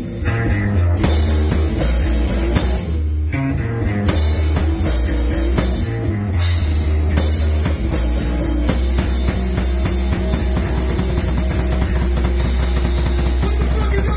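A rock band playing live: electric guitar, bass guitar and a drum kit. The riff breaks off briefly a few times in the first six seconds or so, then runs on steadily.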